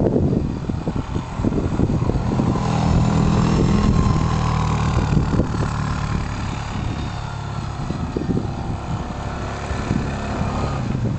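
Quad bike engine running as the ATV drives through snow. It is loudest a few seconds in as it passes close, then fades as it moves off. Irregular low rumbling, likely wind on the microphone, runs underneath.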